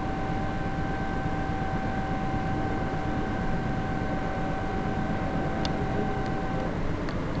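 Steady low rumbling background noise with a faint, steady high-pitched whine that stops shortly before the end, and a few faint clicks near the end.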